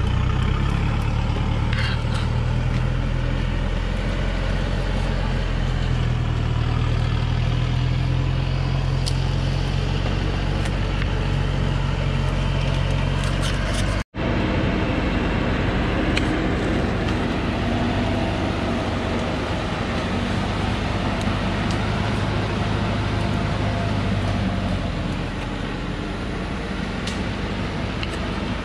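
Diesel engine of a heavily loaded Thaco Foland truck running steadily as the truck tries to work free of sand and mud. The sound cuts out for an instant about halfway through, then the engine carries on a little quieter near the end.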